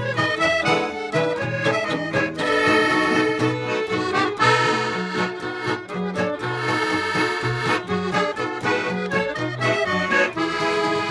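Instrumental music: a melody carried over a steady, regularly alternating bass line.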